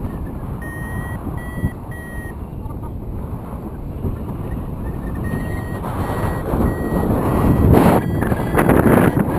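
Paragliding variometer beeping in short repeated tones, about two or three a second, which signals the glider is climbing in lift. The beeps come in a run about a second in and again around six seconds, over heavy wind rush on the microphone that grows louder near the end.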